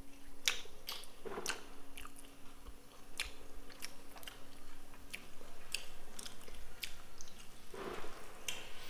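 Someone biting and chewing food, most likely the finished cheese omelette being tasted, with scattered short clicks throughout.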